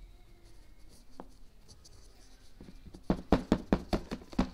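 Homemade slime being mixed and squished by hand, giving a run of sharp clicks and pops at about five a second from about three seconds in, after a quiet stretch with a single click.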